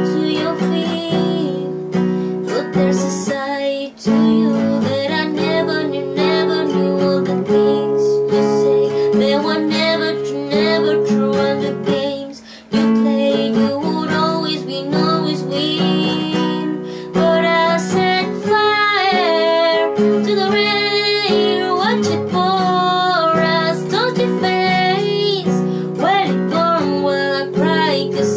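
A woman singing a ballad to a strummed acoustic guitar, with two brief breaks between phrases.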